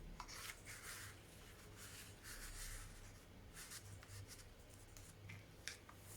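Faint rustling of paper as the pages of a handmade envelope-and-paper journal are turned and handled: several soft swishes with a few light ticks.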